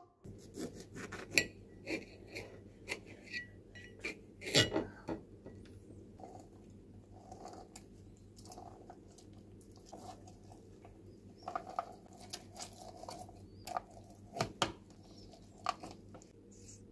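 Tangerine halves being twisted by hand on a red plastic citrus reamer, with irregular knocks and clicks of the plastic juicer against its container; the loudest knocks come about one and a half and four and a half seconds in.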